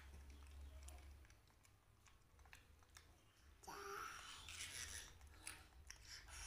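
Faint clicks and rustles of a plastic bubble-wand tube and wand being handled, with a louder rustling stretch about four seconds in.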